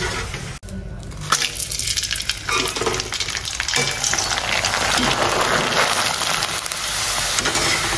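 Papad frying in hot oil in a karahi: a dense, steady crackling sizzle that comes up about a second in.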